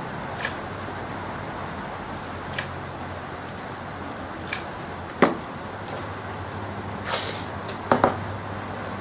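Hot glue gun being worked on a small tube part: a few light clicks spread through, a sharper click about five seconds in, then a short scuff and knocks near the end as the gun is set down, over a steady hiss of room noise.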